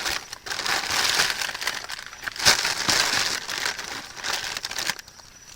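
Plastic packaging and bags crinkling and rustling as discarded grocery items are handled and sorted in a dumpster, with a sharper knock about two and a half seconds in.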